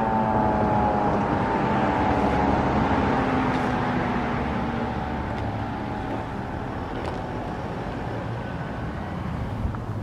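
Grifco Model 888 five-port fire siren winding down at the end of a short alert, its wail sliding slowly lower in pitch and fading out over several seconds.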